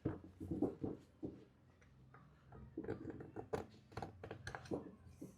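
Quiet handling noises: irregular light clicks, taps and rubbing as hands work with tools and parts.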